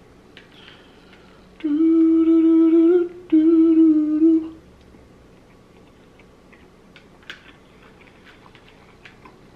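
A man humming "mmm" twice with his mouth closed while eating a bite of sushi, two held notes of a second or so each at a steady pitch, the sound of a pleased diner. After them come only faint small clicks.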